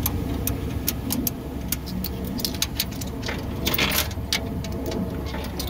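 Sharp clicks and metallic clinks from handling a coin payphone, with a longer clatter about four seconds in, over a steady low rumble.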